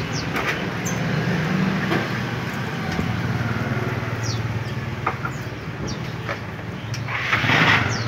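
Caged songbirds giving short, high chirps now and then over a steady low engine hum, with a few clicks and a brief burst of noise near the end.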